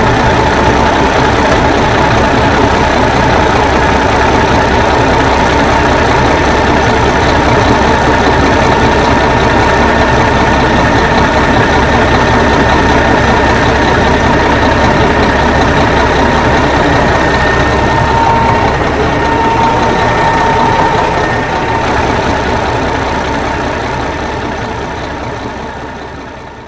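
Old Ford 900 truck engine idling steadily, fading out over the last few seconds.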